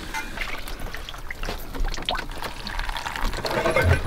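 Hands scooping stiff maize porridge (ugali) out of a metal cooking pot: soft wet scraping with many small scattered clicks.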